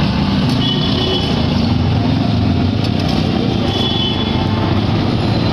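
Steady low rumble of motor-vehicle engines in street traffic, with no distinct strikes standing out.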